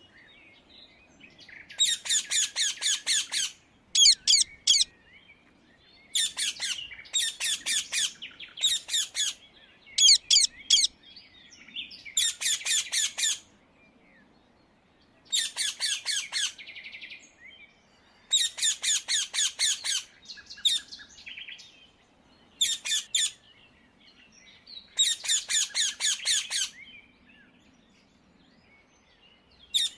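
Indian ringneck (rose-ringed) parakeet giving loud, harsh screeching calls. The calls come in quick runs of several notes, about ten runs in all, with short pauses between them.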